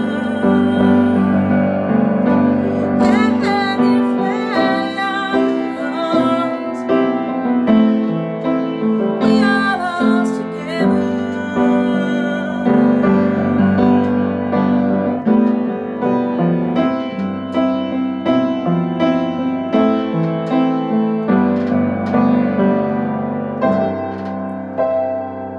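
Piano song with a woman singing in places; the playing winds down and fades out at the very end.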